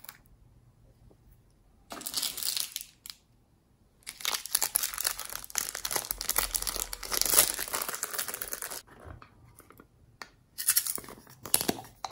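Thin clear plastic packaging crinkling and tearing as it is handled and opened, in bursts: a short one about two seconds in, a long one from about four to nine seconds in, and another near the end.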